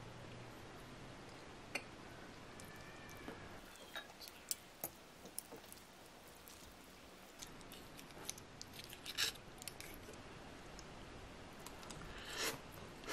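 Scattered clicks and scrapes of a metal spoon and fork against a ceramic plate as spaghetti is tossed with an egg yolk, then quiet chewing of a mouthful of pasta near the end.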